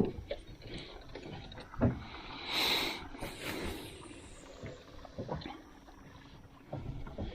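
Knocks and thuds on a small skiff's hull as it is worked on, with a short rush of splashing water about two and a half seconds in.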